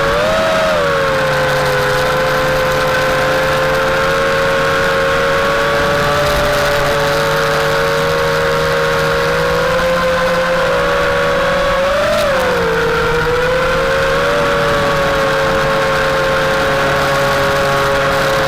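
FPV drone's brushless motors whining steadily as several close tones, rising briefly in pitch and falling back with throttle changes near the start and about twelve seconds in.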